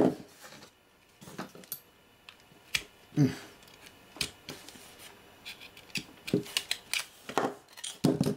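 A soldered sheet-metal shield cover being pried and peeled off a small circuit-board module by hand: irregular clicks, scrapes and crinkles of thin metal, coming thicker near the end as the cover comes free.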